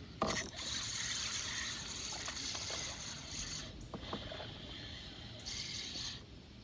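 Fishing reel cranked to retrieve the line: a sharp click near the start, then a high whirr for about three seconds, a brief pause, and a shorter second spell of reeling.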